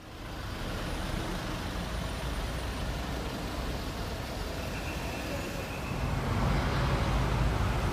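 Road traffic at a congested intersection: a steady rumble of car and truck engines and tyres, growing louder about six seconds in.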